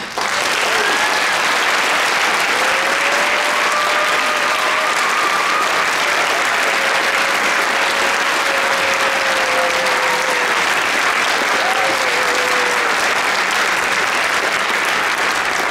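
Audience applauding, starting suddenly and keeping up steadily, with a few long drawn-out whoops over the clapping.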